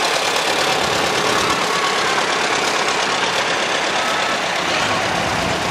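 Antique Farmall tractor engine running steadily as the tractor drives slowly past.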